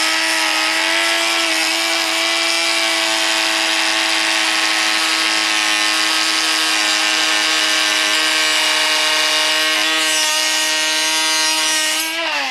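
Small high-speed electric power tool running steadily at a constant pitch, then switched off near the end and spinning down with falling pitch.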